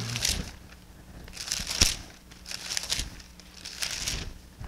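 Thin Bible pages being turned and leafed through: a few short bursts of papery rustling, with one sharper page flick a little under two seconds in.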